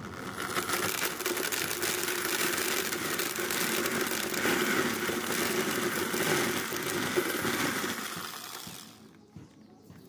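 Corded electric drill running as it drives a corn cob through a pipe sheller lined with screw tips, stripping the kernels off the cob into a plastic bucket. The drill stops about nine seconds in.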